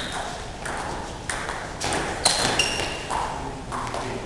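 Table tennis ball in a doubles rally, clicking off the bats and the table about twice a second, seven or so sharp strikes. A couple of the strikes carry a short high ring.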